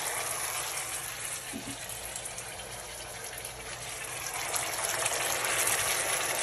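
Tomato sauce with garlic and olive oil sizzling in a frying pan as a steady hiss, a little quieter in the middle and building again toward the end.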